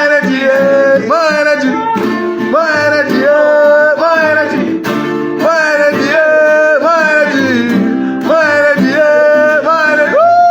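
A song continuing: a singing voice with scooping, gliding notes over guitar accompaniment, rising into a long held note near the end.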